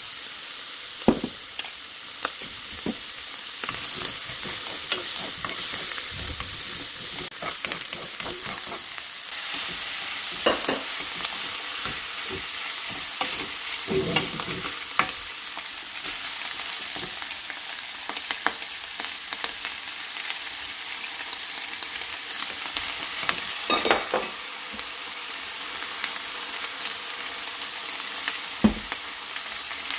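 Food sizzling in a hot frying pan as it is stirred and tossed, with a steady hiss and scattered knocks and scrapes of the spatula against the pan.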